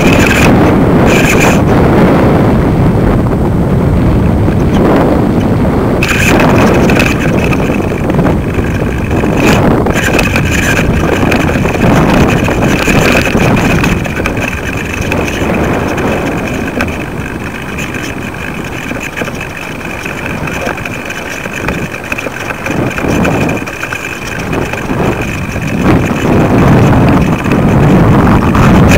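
Wind buffeting the microphone of a kite-lifted camera rig: a loud, low rush that swells and eases, dropping somewhat past the middle and picking up again near the end. A faint high whine runs under it, dropping out now and then.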